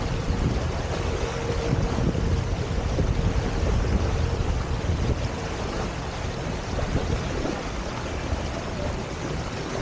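Wind buffeting the microphone and water rushing along the hulls of a Hobie Tiger F18 catamaran under sail, with a faint steady hum underneath.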